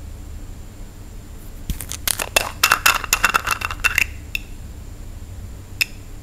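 A bottle and its cap being handled: after a quiet start, a quick run of sharp clicks and clinks with a faint ring lasts about two seconds, and a single click follows near the end.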